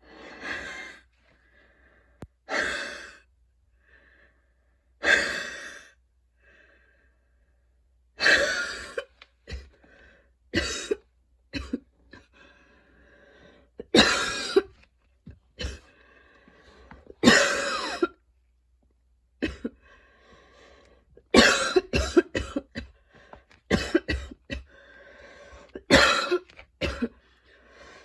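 A woman's long coughing fit: loud harsh coughs, some single and some in quick clusters that come closer together in the last third, with wheezy breaths drawn in between. The fit is set off by running, an allergy to freshly cut grass and fatigue.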